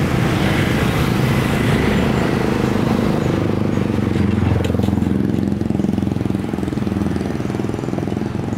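Road traffic of small motorcycles and scooters passing, their engines running with a steady low hum and tyre noise, easing off slightly in the second half.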